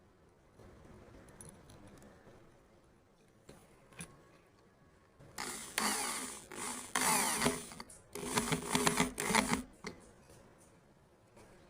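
Small power tool working wood, run in two bursts of about two seconds each, with quiet handling noise before them.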